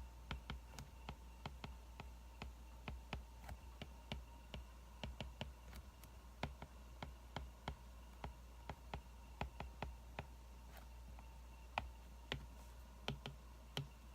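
Wood fire crackling: irregular sharp pops and snaps, several a second, over a faint steady low hum.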